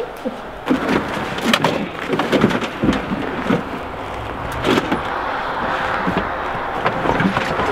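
Gear being handled and shifted in a vehicle's cargo area: repeated knocks and clunks over rustling plastic bags and packing noise.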